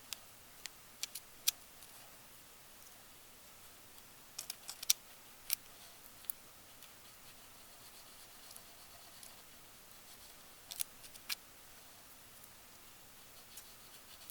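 Scattered light clicks and taps of small tools and parts being handled on an electronics workbench, a few in quick clusters, over quiet room tone.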